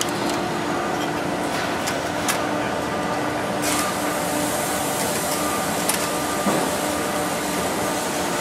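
Steady mechanical hum of workshop machinery, with a few light, sharp clicks as Cleco fasteners are set into the aluminium wing ribs.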